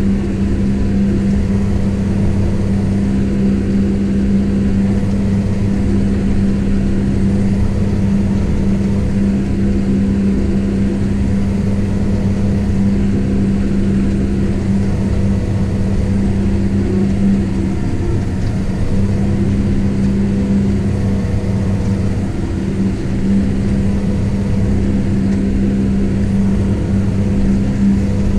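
Kubota M7172 tractor's four-cylinder turbo-diesel engine running steadily under ploughing load, heard from inside the cab as a constant droning hum over a low rumble, wavering briefly past the middle.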